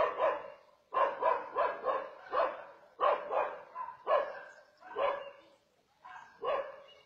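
Dog barking repeatedly in quick runs of two to four barks.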